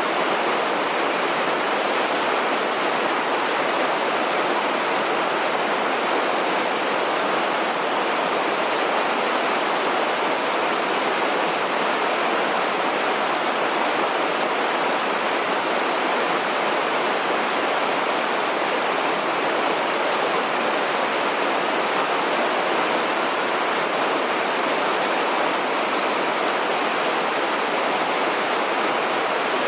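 Water pouring over a waterfall: a steady, unbroken rush.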